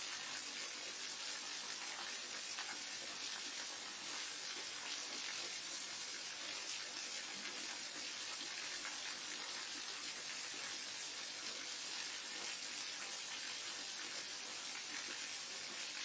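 Waterfall: a steady, even rush of falling water, brighter than deep, with no breaks or changes.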